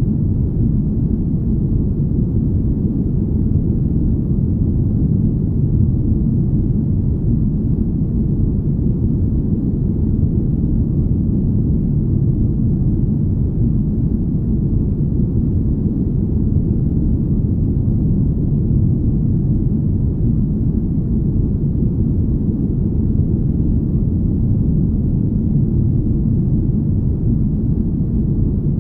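Deep, smooth rumble: a steady low noise with no hiss or tones and no change, played as the hum of a spaceship.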